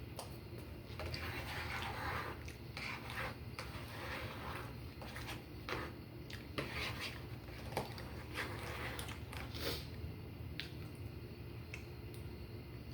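Eating sounds: an eating utensil scraping and clicking against a dish of hashbrown casserole shepherd's pie, in an irregular run of short scrapes and clicks, mixed with chewing.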